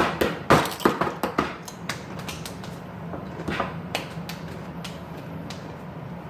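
A quick run of sharp clicks and taps over about the first second and a half, then a few scattered ticks, from a tortilla chip and a cup of mixed hot sauce being handled. A steady low hum runs underneath.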